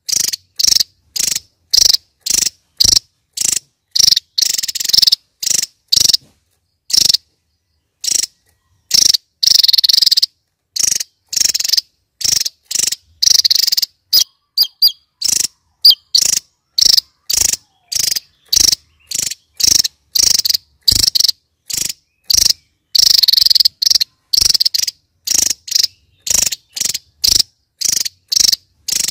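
Javan tesia singing: short, sharp, high-pitched notes repeated about twice a second, with a few longer phrases among them.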